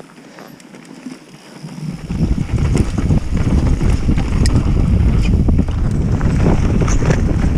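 Wind buffeting the rider's camera microphone and mountain-bike tyres rumbling over a dirt forest trail, getting loud about two seconds in as speed picks up, with short clicks and rattles from the bike.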